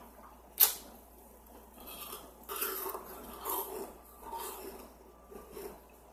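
Ice being bitten and crunched close to a microphone: a single sharp crack about half a second in, then irregular crunching through the middle and once more near the end.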